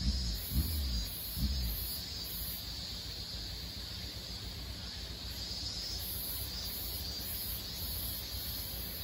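Steady high-pitched insect chorus of crickets or similar insects over a low outdoor rumble, with a few brief low thumps in the first second and a half.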